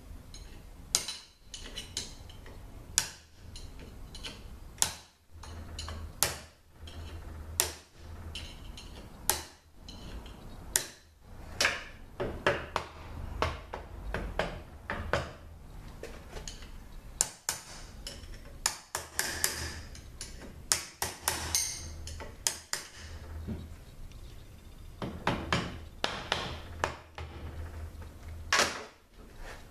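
Hammer taps on metal, irregular, about one every second or two with quicker runs of taps in places, as the stuck center support is driven out of a Toyota A340 automatic transmission case.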